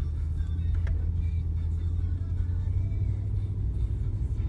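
Steady low rumble of a 2015 Ram pickup truck driving along.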